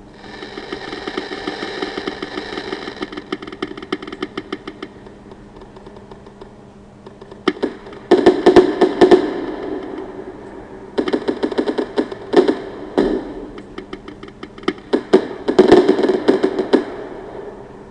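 Fireworks crackling: rapid strings of many small sharp pops coming in four waves. The loudest waves come about halfway through and near the end.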